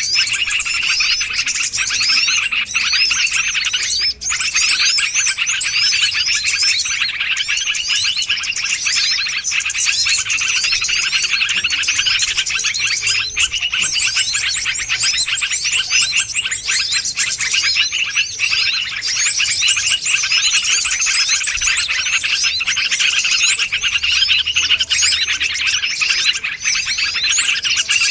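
Bird-lure recording of small songbirds: a dense chorus of many overlapping high chirps and twitters without a break.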